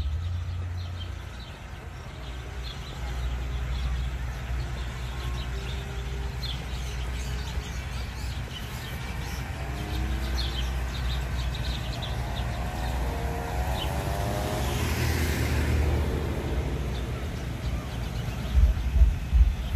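Outdoor ambience: birds chirping over a steady low rumble. About a second before the end, a thumping bass beat of music starts up, a little over two beats a second.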